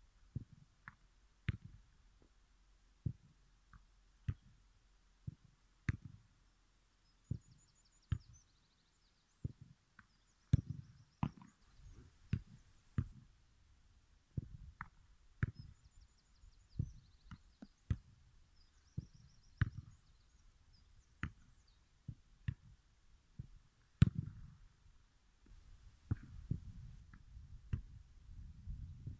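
A football being kicked and headed back and forth, a dull thump every second or so, with one louder strike about three-quarters of the way through.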